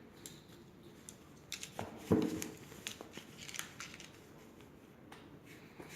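Light clicks and rustling of the plastic shrink-wrap on a phone box being handled and cut open, with one louder thud about two seconds in.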